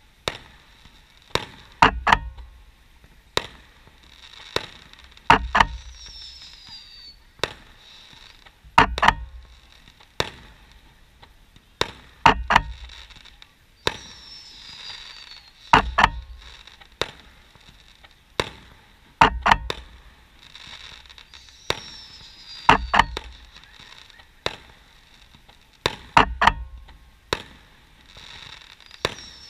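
Distant fireworks shells bursting in the sky: sharp bangs about once a second, the bigger ones trailing off in a low rumble. A faint falling whistle comes back every seven or eight seconds.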